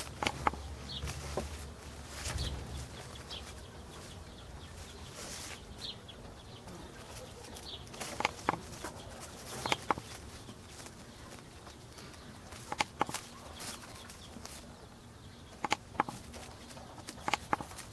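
Irregular short, sharp clicks, often in quick pairs, over a quiet outdoor background. A low hum fades out in the first few seconds.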